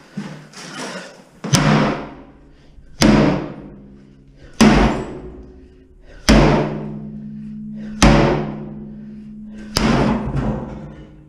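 Sledgehammer blows smashing a cast iron bathtub: six heavy strikes, about one every second and a half, each leaving the tub ringing with a low metallic tone that dies away.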